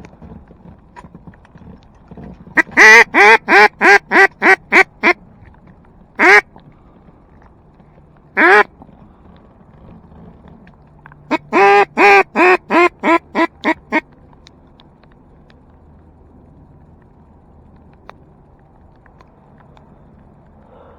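Hand-blown duck call sounding loud, close quacks: a run of about nine quacks, two single quacks, then a second run of about nine quacks. It is calling to ducks flying toward the decoys.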